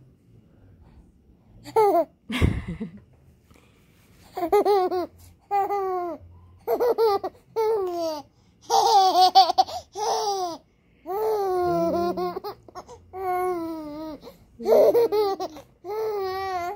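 A six-month-old baby laughing and babbling in a string of short, high-pitched bursts with wavering pitch. There is a single thump about two seconds in.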